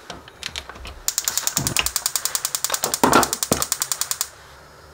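Gas stove burner's spark igniter ticking rapidly, about ten clicks a second, for some three seconds while the knob is held, then stopping suddenly as the burner lights. A few dull knocks of handling come before and among the clicks.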